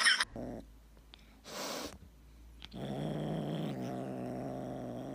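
A tabby kitten with a stick in its mouth makes a low, steady rumble in its throat, starting about three seconds in and lasting nearly three seconds. Before it there is a short burst of rustling noise.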